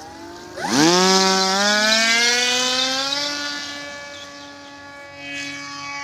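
Electric motor and propeller of a battery-powered foam RC model of a Sukhoi fighter throttling up for take-off: a loud whine that jumps up in pitch about half a second in and keeps climbing more slowly for a couple of seconds. It then holds steady and fades as the plane climbs away.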